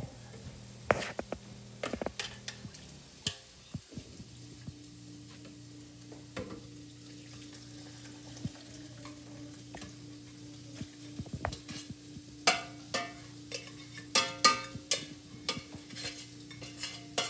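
Cooled soup being transferred from a saucepan into a soup blender: a kitchen utensil scrapes and knocks against the pan, with scattered clinks that come thick and ringing near the end, over a faint steady hum.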